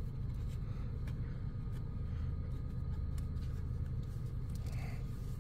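A steady low rumble runs throughout, with a few faint light clicks and rustles from small plastic tool parts being handled.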